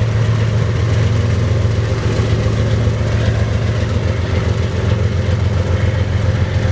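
Three GE diesel-electric freight locomotives, led by a BNSF ES44DC with its V12 diesel, passing close by under heavy load. All three are on high throttle, giving a loud, steady low engine drone.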